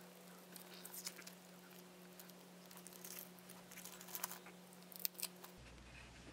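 Faint, irregular crinkling and light scraping from hand work on the vise, over a steady low electrical hum.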